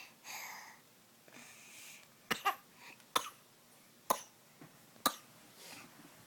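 A small child fake coughing: breathy huffs, then a series of about five short, sharp coughs roughly a second apart.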